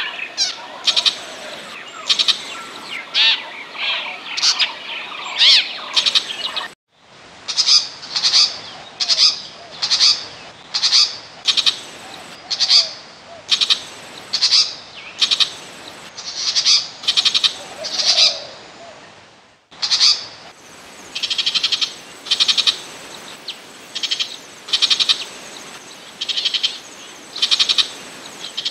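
Burmese shrike calling: first a run of varied chattering notes, then harsh, rasping calls repeated about one and a half times a second. The recording cuts abruptly about 7 seconds in and again about 20 seconds in, as a looped lure-call track.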